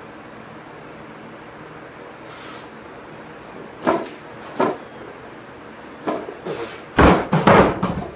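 Plate-loaded barbell knocking during a block pull: two sharp knocks about four seconds in, then a run of heavy thuds and plate clatter near the end, the loudest of them, as the bar is set back down on the wooden blocks.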